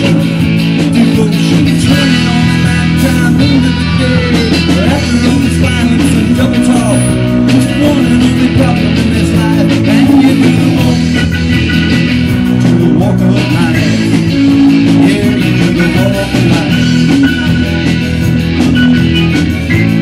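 Live amplified rock band playing: electric guitar, bass guitar, drums and keyboard.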